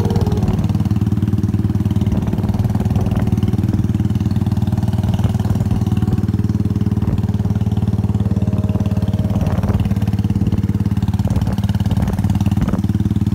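Motorcycle engine running steadily at an even road speed while being ridden, heard from the bike itself.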